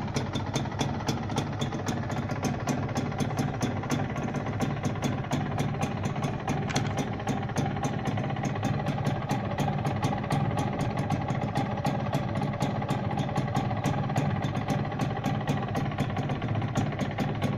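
Yamaha Royale YB100's single-cylinder two-stroke engine idling steadily, with an even, rapid ticking beat.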